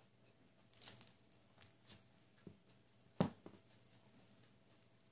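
Grilled chicken being torn apart by hand and eaten, heard as a few short, sharp wet smacks and tearing sounds. The loudest comes a little past the middle.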